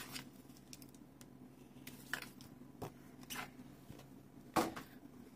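A few short, soft rustles and taps of a coin certificate card in a plastic sleeve being handled, the loudest near the end.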